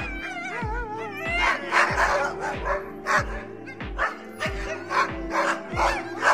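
A dog whining with a wavering pitch, then yapping in short barks, over background music with a steady beat.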